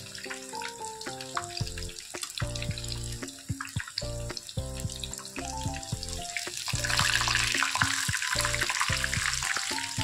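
Breaded chicken strips deep-frying in hot oil in a pan: steady sizzling and bubbling, louder from about seven seconds in. Background music with a melody over bass notes plays throughout.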